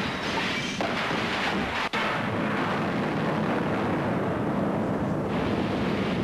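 Action-film soundtrack of a shootout: a dense wash of gunfire and explosion noise. It breaks off sharply about two seconds in, then goes on as a steady rumble.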